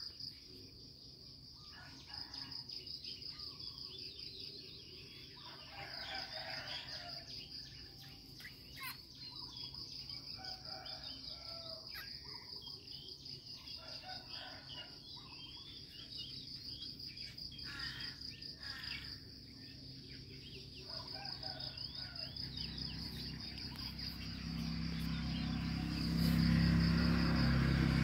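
An insect chirring in a steady, high, pulsing trill, with scattered short bird chirps. A low rumble builds and grows louder near the end.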